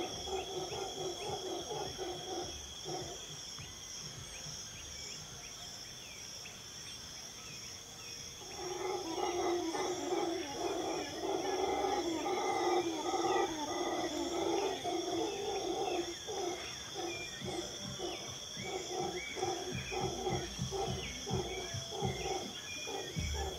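Low, rapidly pulsing calls of a wild animal in two bouts: a short one at the start and a longer, louder one from about eight seconds in. Under them runs a steady high-pitched insect drone, with scattered bird chirps.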